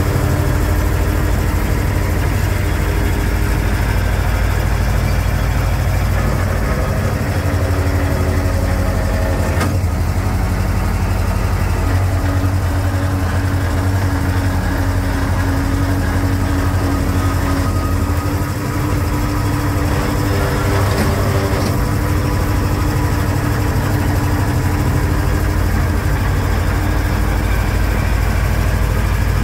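Fuchs 301 cable excavator's engine running steadily while the machine digs, heard from inside the cab, with one sharp knock about ten seconds in.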